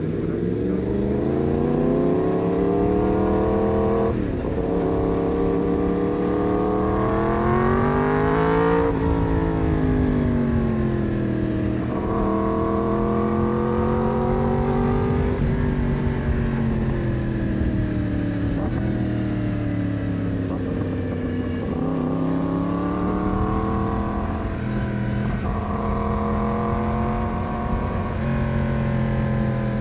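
Yamaha MT-10's crossplane inline-four engine from the rider's seat, pulling through the gears: its pitch climbs, drops sharply at each upshift, and sinks away when the throttle is rolled off for bends. Wind rush runs underneath.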